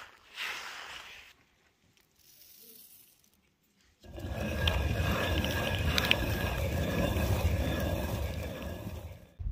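A faint rustle of wheat grains under fingers, then about four seconds in a stone hand quern starts grinding grain: a steady, low grinding scrape of the turning upper millstone on the lower one, which stops just before the end.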